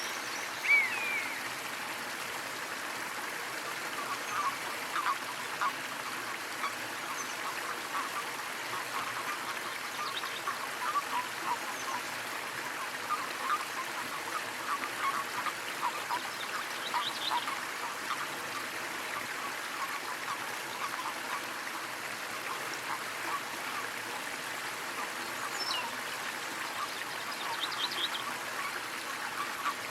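Small waterfall splashing steadily, with quick trickling plinks of water. Bird calls break in now and then, the loudest about a second in and short chirps later on.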